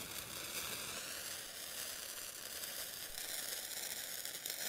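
A sparkler fountain burning with a steady fizzing hiss.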